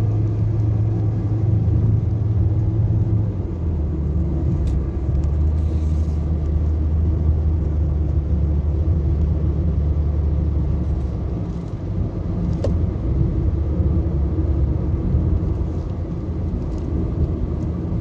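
Nissan Sentra driving on a road test, engine and road noise as a steady low drone that drops in pitch about three and a half seconds in and shifts again near the middle. With its cylinder 2 spark plug replaced, the car runs without bucking from misfire.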